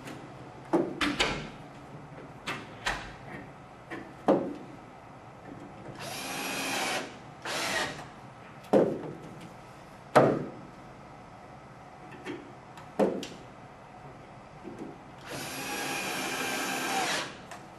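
Cordless drill driving screws into a wooden frame: a run of about a second about six seconds in, a brief second burst, and a longer run of about two seconds near the end. Between the runs, wooden pieces knock sharply together as they are fitted.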